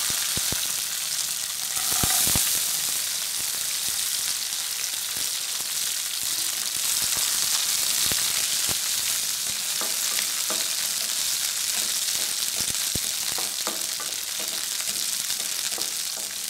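Cashew nuts and raisins frying in hot coconut oil: a steady sizzle, louder about two seconds in, with frequent clicks and scrapes from a wooden spatula stirring them.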